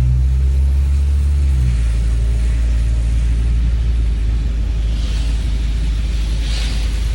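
A vehicle engine running with a steady, heavy low rumble; its low tone shifts down a little under two seconds in.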